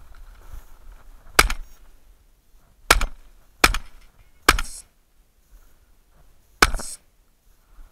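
A hunting gun firing at a hare: several sharp, short bangs at uneven intervals over about five seconds, some with a brief ringing tail.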